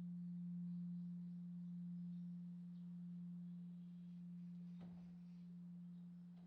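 Korean Buddhist temple bronze bell (beomjong) humming after a strike: a single low steady tone that slowly fades. A faint click about five seconds in.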